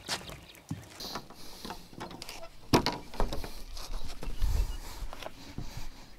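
A landing net with a fish in it being set down and handled on a wooden jetty deck: scattered knocks and clicks on the boards with rustling, the loudest knock a little under three seconds in, and low thuds of handling noise on a chest-mounted camera around the middle.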